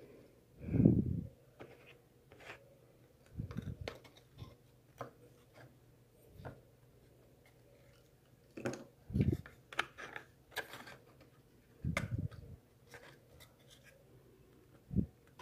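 Cardboard pieces and a small glue tube being handled on a desk: scattered light clicks, scrapes and rustles, with a few dull thumps, the loudest about a second in.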